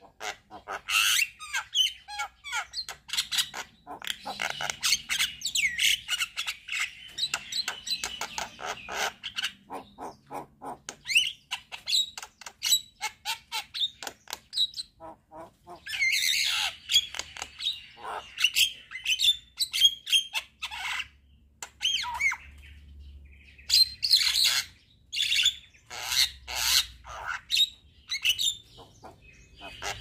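Javan myna singing in a loud, varied run of rapid clicks, harsh squawks and whistled notes, with a few short pauses.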